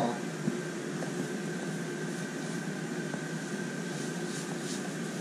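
Dehumidifier running steadily, a constant hum and fan hiss with a faint steady tone.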